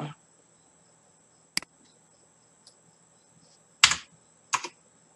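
Computer keyboard keys pressed one at a time: a single sharp tick about a second and a half in, then two louder clacks near the end.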